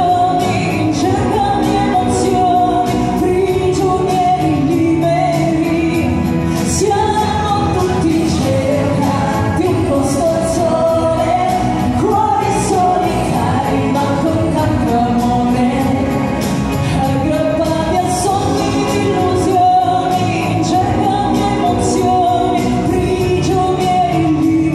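A woman singing a pop song live into a microphone over amplified instrumental backing, without a break.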